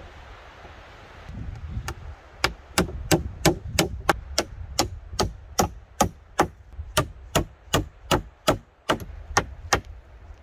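Hammering on wooden roof planks: a steady run of about twenty sharp strikes, two to three a second, starting about two seconds in.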